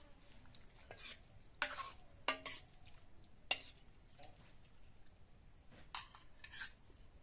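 Metal ladle scraping and clinking against a black wok and a steel bowl as curry is scooped out and served. There are about five sharp clinks with softer scrapes between them; the sharpest comes about halfway through.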